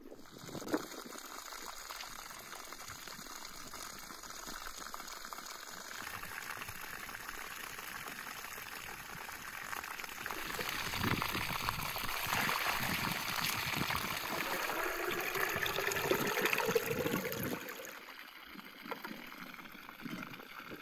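Water running from a garden hose, splashing on the grass and pouring into a metal samovar, with a pitch that rises as the samovar fills; the flow dies down a few seconds before the end. A short knock just under a second in.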